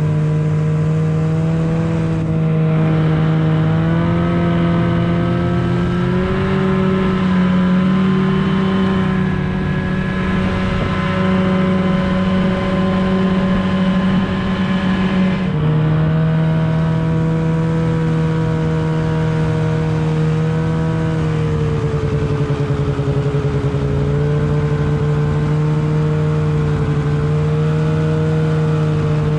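Snowmobile engine running at speed, a steady drone whose pitch climbs in a few steps over the first several seconds, drops suddenly about fifteen seconds in, then dips and rises again gently.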